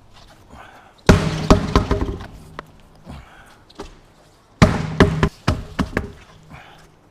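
Two bursts of heavy thumps and knocks, each a quick run of several hits with a short ringing tail, the first about a second in and the second about three and a half seconds later.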